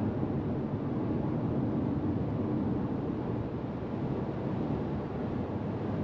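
Steady road and wind noise heard inside the cabin of a SsangYong Torres T7 4WD cruising in sixth gear: an even rumble of tyres and air with no distinct events.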